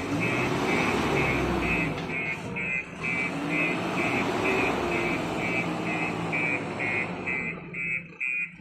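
Bulldozer's reverse alarm beeping steadily, a little over two beeps a second, over its diesel engine running and changing pitch under load; the beeping stops near the end, as the machine stops reversing.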